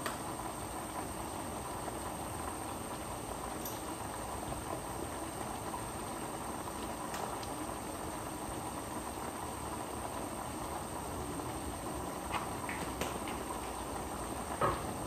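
Pot of chicken asado simmering on the stove, a steady hiss, with a few light clicks near the end.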